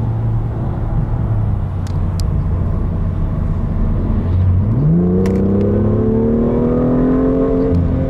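BMW M2's turbocharged straight-six, heard from inside the cabin, cruising at low revs. About four and a half seconds in, the dual-clutch gearbox kicks down from sixth to third and the engine revs rise sharply, then keep climbing under hard acceleration. The engine eases off briefly just before the end.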